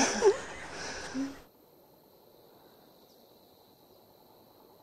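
Outdoor background hiss and a woman's brief laugh that end abruptly about one and a half seconds in at an edit, followed by near silence.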